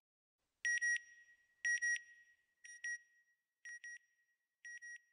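Electronic beeps in pairs, one steady high tone, about one pair a second, fading away over the five pairs.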